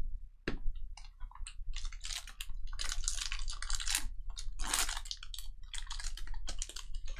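Trading-card pack wrappers being torn open and crinkled, in a run of irregular crackling bursts, with a sharp tick about half a second in.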